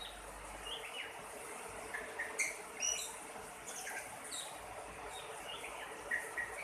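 Oriental magpie-robin (kacer) calling: short scattered chirps and whistles, loudest a little under three seconds in.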